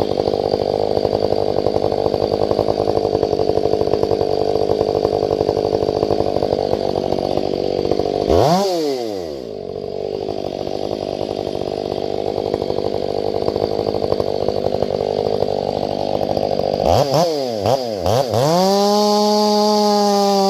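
Stihl 500i fuel-injected two-stroke chainsaw cutting through a log under load. About eight seconds in it revs up and drops back once, then runs on. Near the end comes a few quick throttle blips, after which it holds a steady high-revving whine.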